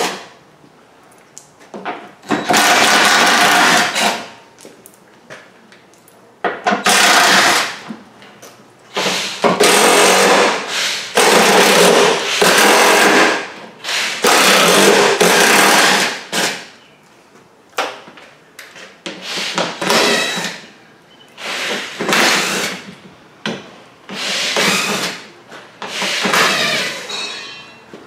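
Handheld cordless driver spinning out the screws along the bottom edge of a plastic bumper cover, in about ten short runs of a second or two each with pauses between.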